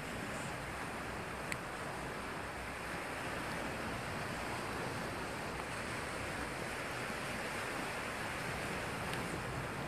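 Surf breaking and washing over a rocky boulder shore, a steady rushing with wind buffeting the microphone. One light click sounds about a second and a half in.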